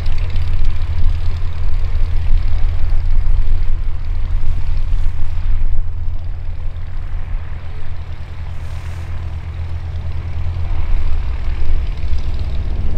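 Light aircraft engine and pusher propeller of a Rutan Long-EZ, a steady low drone overhead that dips a little past the middle and builds again near the end.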